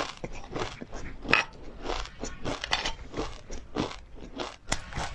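Close-miked crunching and chewing of a mouthful of oil-fried seeds (perilla, pumpkin and flax), with many small crisp crunches several times a second.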